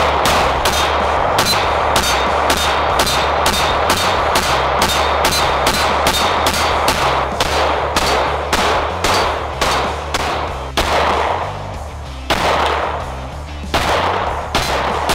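Rapid pistol fire from a Ruger American striker-fired pistol, about three to four shots a second, with a few short pauses in the last few seconds. Background music runs underneath.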